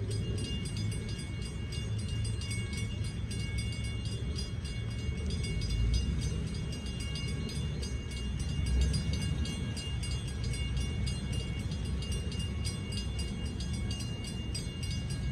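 Low, steady rumble of a distant CT Rail Hartford Line push-pull train approaching, swelling a little about six and nine seconds in, with faint thin high tones above it.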